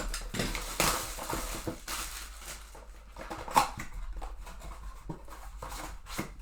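A sealed trading-card box and its packs being opened by hand: irregular rustling, crinkling and tearing of wrapper with small clicks of card stock, and one sharper snap about three and a half seconds in.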